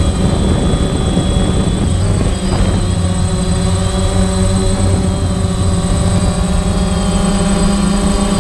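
Parrot Bebop quadcopter drone in flight: its motors and propellers make a steady whine of several tones at once, the pitches shifting slightly as the rotor speeds adjust.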